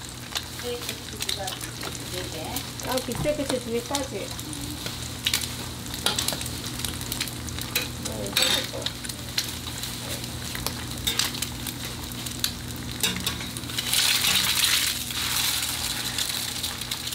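Food sizzling on a hot griddle, with many short sharp clicks and taps through it. The sizzle swells louder for a couple of seconds about fourteen seconds in.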